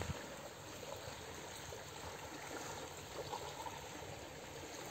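Small waves lapping faintly and steadily on a pebble beach.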